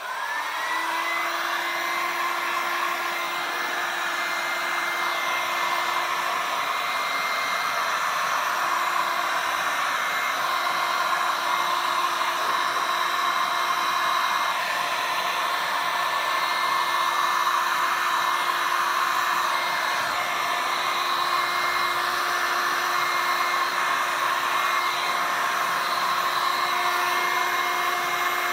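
Heat gun switched on, its motor spinning up with a short rising whine, then blowing hot air steadily over wet resin.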